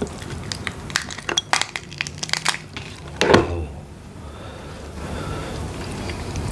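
Crab shell cracking and crunching under the teeth as a mud crab is eaten, a quick run of sharp cracks for about two and a half seconds, then a short louder mouth sound and quieter chewing.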